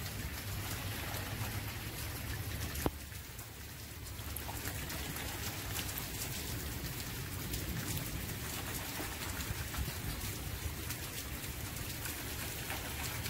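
Steady rain falling on wet asphalt, an even hiss flecked with the ticks of single drops. One sharp click comes just under three seconds in.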